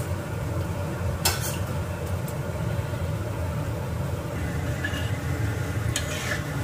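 Tempe cubes frying in hot oil in a steel wok: a steady sizzle over a steady low rumble. A sharp click about a second in, and a spatula clinking against the wok near the end.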